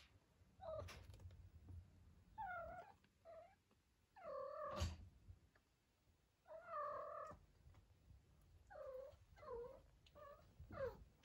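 Four-week-old kittens mewing in a series of short, high calls while they play, with one longer mew past the middle. Soft thumps of their scrambling, and a sharp knock about five seconds in.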